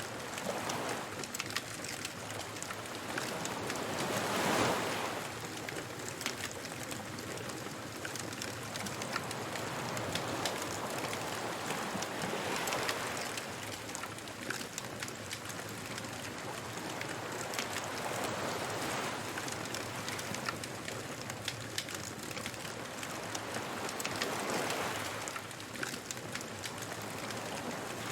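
Beach ambience: surf washing in, swelling four times about every seven seconds, over a steady light crackle of a bonfire.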